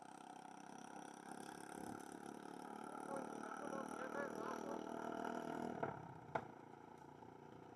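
Faint distant voices over a steady background hum, with a single sharp click about six seconds in.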